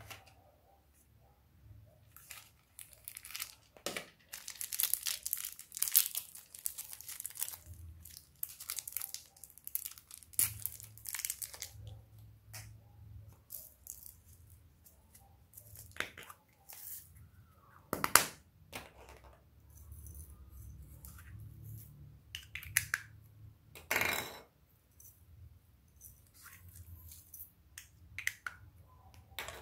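Small plastic toy containers handled and opened over a glass bowl of slime: irregular crinkling, rustling and rattling, with scattered sharp plastic clicks, two of them louder in the second half.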